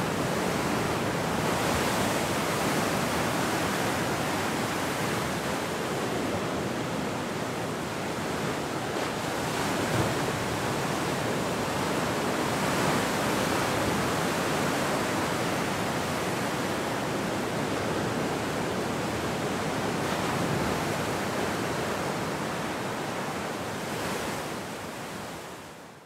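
Ocean surf breaking on a beach: a steady wash of waves that swells every few seconds, fading out over the last couple of seconds.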